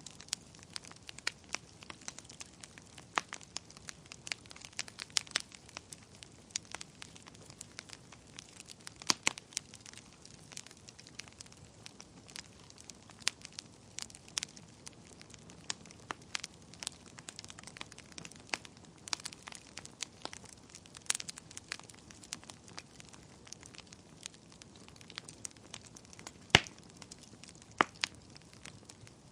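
Wood fire burning in a fireplace: irregular crackles and snapping pops over a faint steady hiss, with one louder pop near the end.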